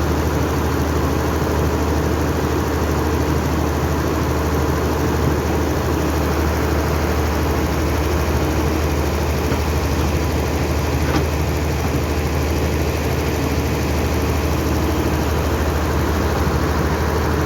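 Kobelco SK210 HD excavator's diesel engine running steadily, a deep even hum that holds the same speed throughout.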